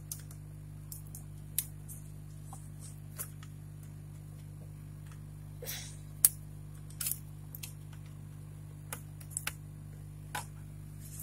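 Scattered small clicks and knocks of hands handling a router and plugging a replacement power adapter into it, the loudest about halfway through, over a steady low hum.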